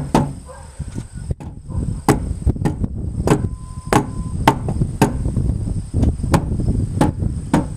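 Sharp knocks, about two a second, rapping on a Ford Taurus's fuel tank, which sounds empty. A brief steady beep is heard partway through.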